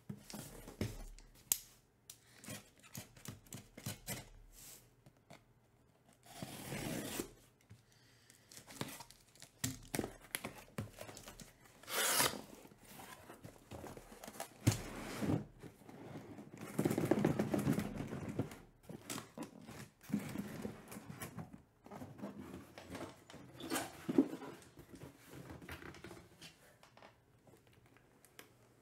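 A cardboard shipping case is torn and pulled open, with long tearing and scraping noises, then shrink-wrapped hobby boxes are slid out and set down with a run of knocks, taps and rubbing.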